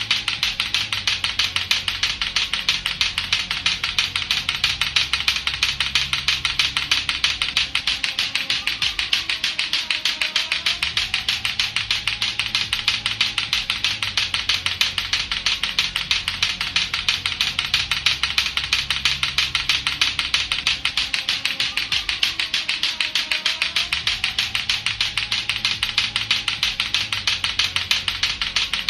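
Lato-lato clackers, two hard plastic balls on a string, clacking together in a rapid, steady, unbroken rhythm. A faint music track with repeating low notes plays underneath.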